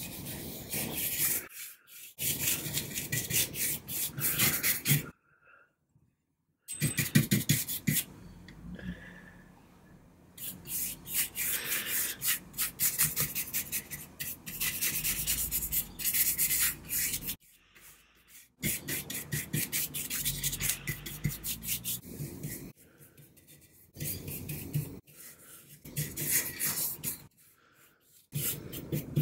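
A paintbrush scrubbing stain into carved wood: fast, rhythmic scratching strokes of the bristles in runs of a few seconds, broken by short pauses.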